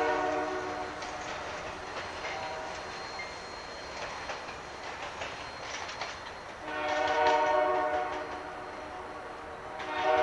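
Diesel locomotive horn of the approaching Holiday Train, sounding a multi-note chord in blasts. One blast dies away about a second in, a long blast comes around the middle, and another starts near the end. Between the blasts the train rumbles with faint clicking of wheels over the rails.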